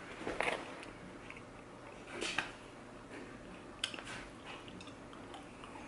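A person biting into and chewing a sheet of paper towel, giving a few soft, scattered crackles and rustles of paper in the mouth.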